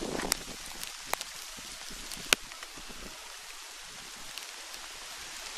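Light rain making a steady hiss, with three sharp ticks in the first half, like drops striking the microphone or nearby surfaces.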